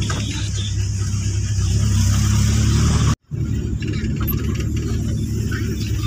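Car engine and tyres on a dirt track heard from inside the cabin: a steady low rumble. The sound cuts out for a moment about three seconds in, then resumes.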